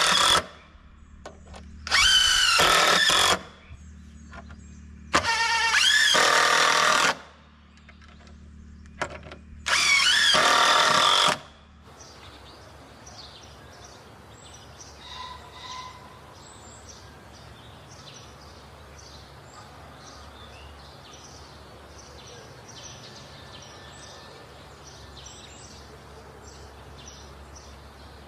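Cordless drill running in three bursts of one to two seconds each, rising in pitch as it spins up, working into pallet-wood boards. It stops about twelve seconds in, leaving outdoor background with faint bird chirps.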